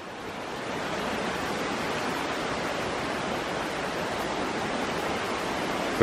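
Rushing water of a small rocky stream pouring over low cascades: a steady hiss that grows a little louder in the first second and then holds even.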